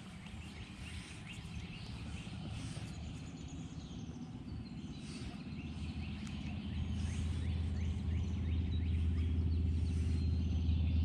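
A boat motor's steady low hum, getting louder about halfway through, with faint bird chirps over it.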